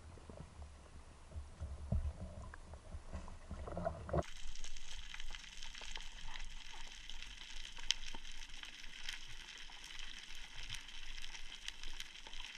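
Water sloshing at the surface, then about four seconds in an abrupt switch to underwater sound: a steady hiss in the sea, thick with fine crackling clicks.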